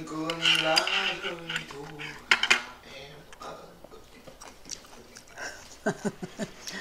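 A woman's voice hums a few held notes. Then chopsticks clack sharply against a plate two or three times, the loudest sounds here. A few softer clicks follow near the end as fruit is handled.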